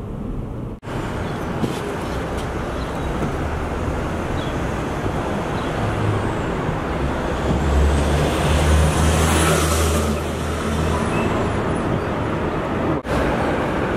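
Steady city road traffic. A heavier vehicle's low rumble and a faint high whine swell about eight seconds in and fade a few seconds later, like a vehicle passing close by.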